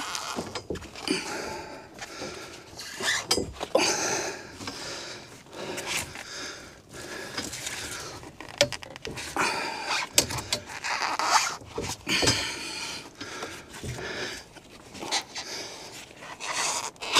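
Copper refrigerant lineset in foam insulation being bent and dragged by hand, the foam and tubing rubbing and scraping against wooden boards in irregular strokes, with occasional knocks.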